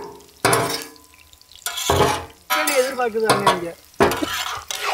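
Metal spatulas scraping and clanking against a large steel plate and iron frying pan as fried fish slices are lifted off and set down. There are about four separate strokes, each with a short metallic ring.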